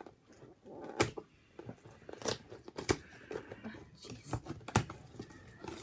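Packaging of a pair of socks being forced open by hand: rustling and tearing with about five sharp snaps or clicks, a hard, thick package that takes effort to open.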